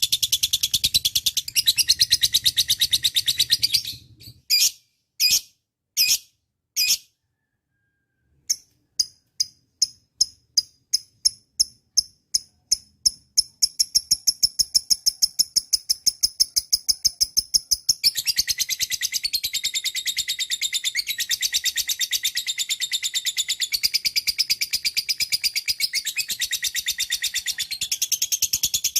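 Lovebird singing a long, rapid, high trill. About four seconds in it breaks into four separate chirps and falls silent for a moment, then starts again with chirps that quicken into a continuous trill running on to the end.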